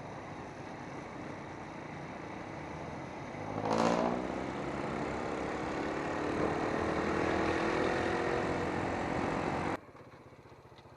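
Motorcycle riding, with a steady rush of wind and engine noise. About four seconds in there is a brief louder sound rising in pitch, then the engine note climbs steadily as it accelerates, before the sound cuts off suddenly near the end.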